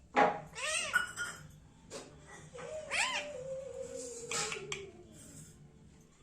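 Indian ringneck parrot calling: a sharp squawk just after the start, then rise-and-fall calls about half a second in and again about three seconds in, joined by a long, slowly falling tone.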